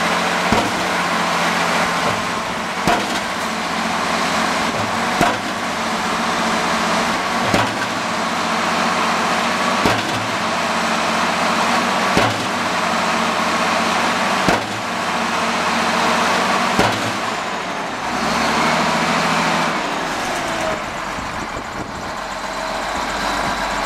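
Rapid impact compactor, a hydraulic hammer mounted on a wheel loader, pounding the ground in regular heavy blows about every two and a half seconds, eight in all, over the loader's steady diesel engine. The blows stop about seventeen seconds in, leaving the engine running.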